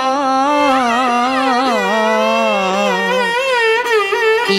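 A woman singing a long ornamented phrase in Carnatic style for a Telugu Harikatha, her pitch wavering and sliding on held vowels, with a violin following the melody. The held line sinks lower about two seconds in and thins out a little after three seconds.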